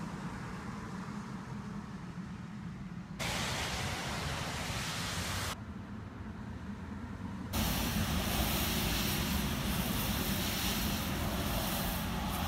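Steady background rumble and hiss picked up by the phone's microphone, with no distinct event. It jumps in level and tone three times: louder at about three seconds, quieter at about five and a half, then loudest and brightest from about seven and a half seconds on.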